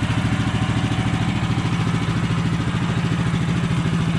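HM130 Max sawmill's gasoline engine idling steadily while it warms up, with a fast, even putter.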